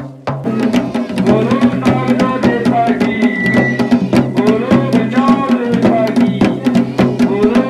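Garhwali dhol-damau drumming, fast and steady, with a wavering melody over a steady low drone. It starts up after a brief break at the very start.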